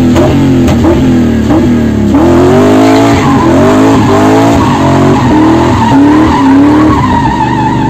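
V8-swapped BMW E30 drifting, heard from inside the cabin: the engine revs rise and fall repeatedly with the throttle while the tyres squeal, the squeal settling into a steady high tone from about three seconds in.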